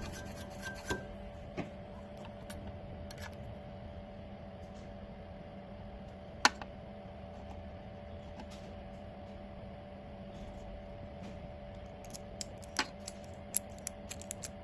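2M2 Tank CNC key cutting machine running, a steady hum with scattered light clicks and ticks, while it cuts the second side of a Honda key blank.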